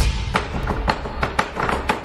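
Percussion music: a quick run of sharp drum strikes over a steady low bass.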